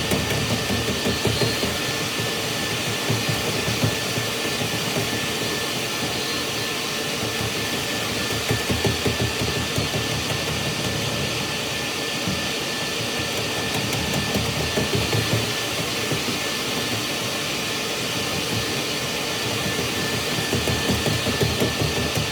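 Dryer vent cleaning vacuum running steadily, with a faint high whine and an uneven low rumble underneath.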